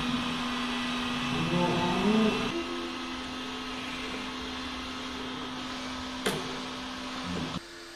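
A song's melody fades out over the first two or three seconds. Then a small electric motor on the 1/10 CROSSRC WT4 RC tow truck whirs steadily, with a sharp click about six seconds in, and cuts off suddenly near the end.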